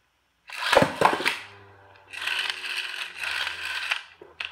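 A Beyblade launched with a Sparking string launcher into a plastic stadium. About half a second in comes a sudden loud burst as the string rips and the top lands. The top then spins on the stadium floor with a steady whirring scrape.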